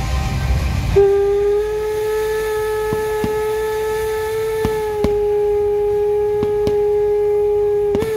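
Steam locomotive whistle blowing one long, steady blast of about seven seconds, starting about a second in and cutting off suddenly near the end.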